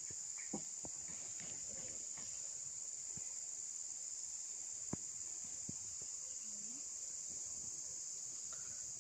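Steady, high-pitched drone of an insect chorus, with a few faint ticks scattered through it.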